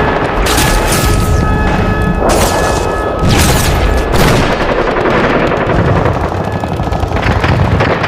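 Sustained rapid gunfire, a dense run of automatic shots with heavier booms mixed in.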